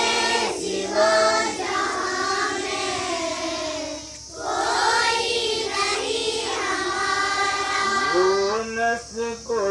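A group of children singing a devotional assembly prayer in unison, led over a microphone, with a short pause between lines about four seconds in.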